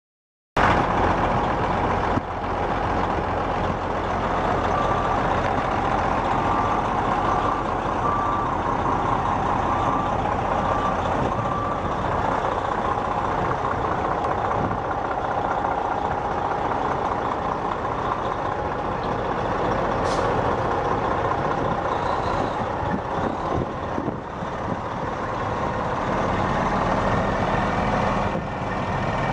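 Diesel engine of a 1999 International 9200 dump truck, a Detroit Series 60, running steadily. For several seconds in the first half a backup alarm beeps at an even pace.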